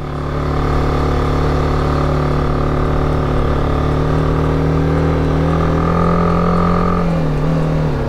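BMW G310GS's 313 cc single-cylinder engine pulling the motorcycle up a steep street. The engine note climbs gradually, then dips about seven seconds in.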